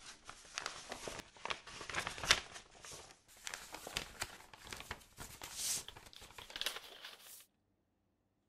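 Close-up rustling and crinkling of paper and a soft guitar gig bag as hands rummage in the bag and handle a folded paper note and a bundle of banknotes. It comes in irregular crackly bursts and stops abruptly about seven and a half seconds in.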